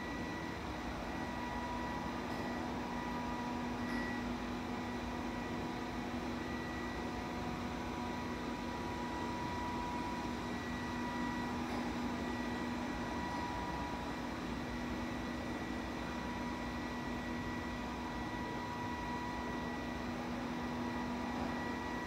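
Robot vacuum cleaner running: a steady motor whir with a constant hum, unchanging throughout.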